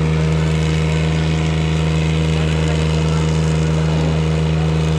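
Two diesel tractor engines, a New Holland 3630 Super and a Swaraj 744 FE, running steadily under heavy load as they pull against each other in a tractor tug of war.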